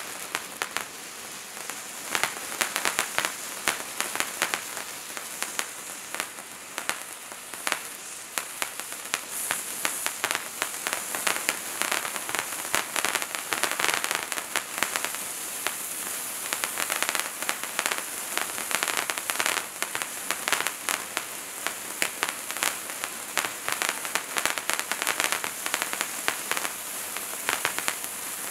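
Hand-held fountain firework (Bright Star Wizards Wand) burning, a steady hiss of spraying sparks laced with dense, rapid crackling pops. The crackling thickens about two seconds in.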